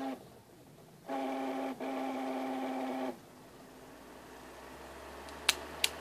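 Box fan motor with worn-out bearings running: a steady pitched tone for about two seconds, cutting out briefly once, then a whir that grows steadily louder, with two sharp clicks near the end. The bearings are shot.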